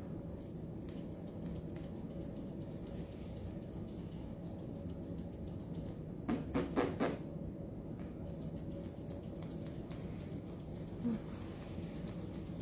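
Grooming scissors snipping through a dog's facial fur close up: a quick, uneven run of small clicks. A brief louder, voice-like sound comes about six seconds in.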